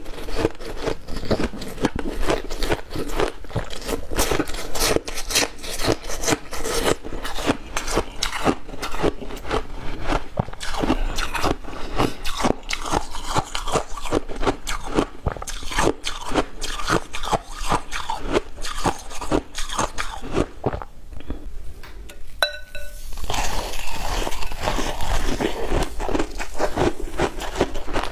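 Close-miked crunching of ice dipped in cola, bitten and chewed in a fast, continuous run of crisp crunches. After a short pause about three-quarters of the way through, denser crunching of a white block of ice follows.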